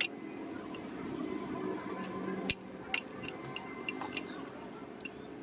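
Several sharp metallic clicks and clinks, like small metal fan parts and tools being handled, over a steady low hum.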